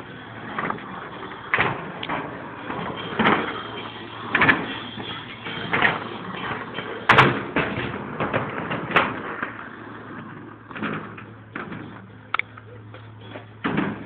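Skateboard rolling over concrete and ramp surfaces, its wheels making a steady rumble broken by a sharp clack or thud every second or two as the board strikes edges and lands.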